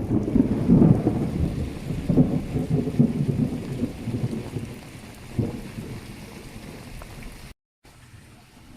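Thunder rumbling over heavy rain: loudest and crackling in the first few seconds, with a sharper clap about five seconds in, then fading while the rain hiss continues.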